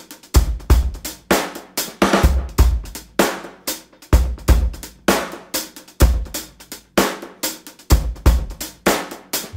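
Background music: a steady drum-kit beat of kick, snare and cymbal hits.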